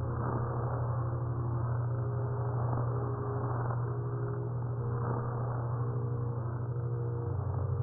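Ambient soundscape music: a steady low drone under soft held tones that change pitch every second or so, over a noisy wash.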